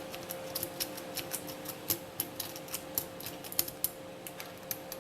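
Half-diamond lock pick raking the pins of a Yale P74CS padlock: irregular light metallic clicks and scrapes, several a second, as the pins are worked without the lock opening.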